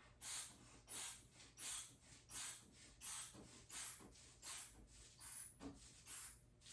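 Hand bulb of a manual blood pressure cuff squeezed over and over, a short hiss of air with each squeeze, about three every two seconds, the last few weaker. The cuff is being pumped up while the wrist pulse is felt (radial obliteration), to find the pressure at which the pulse disappears.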